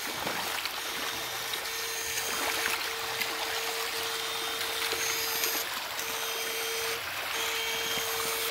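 Shallow creek water running over stones, with a steady electrical whine from a backpack battery-powered electrofishing unit that cuts out for a moment every second or so as the current is switched.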